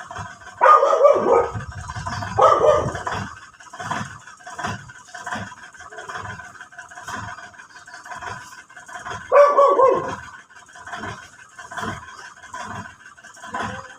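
A dog barking: two barks in the first few seconds and a third near ten seconds in, over a faint regular ticking about twice a second.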